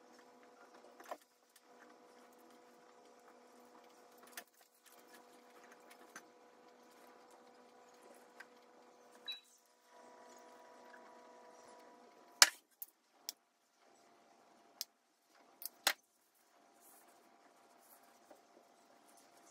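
Faint handling sounds of shawarma filling being laid on thin lavash over a steady low hum, with a handful of sharp clicks and knocks partway through.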